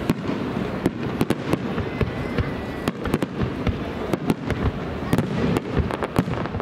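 Starmine fireworks display: aerial shells bursting in rapid, irregular succession, about two bangs a second, over a continuous noisy background.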